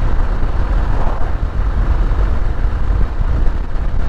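Kawasaki KLR 650's single-cylinder engine running steadily while the motorcycle is ridden, with a low rumble of wind on the microphone.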